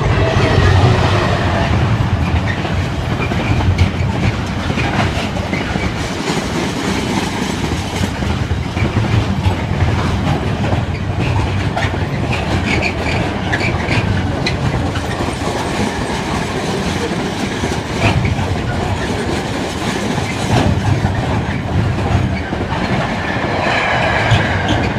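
A GB Railfreight Class 66 diesel locomotive passes close by at the head of a container freight train, its two-stroke V12 engine giving a heavy low rumble. The long rake of container wagons follows with a steady rumble and the rhythmic clatter of wheels over rail joints.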